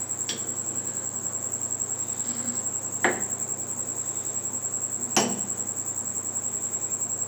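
A serving spoon stirring thick custard with fruit in a bowl and knocking sharply against the bowl twice, about three and five seconds in. A steady, high-pitched pulsing trill runs underneath throughout.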